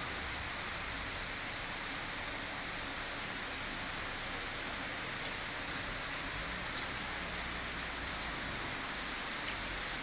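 Steady rain falling, an even hiss with a few faint drips.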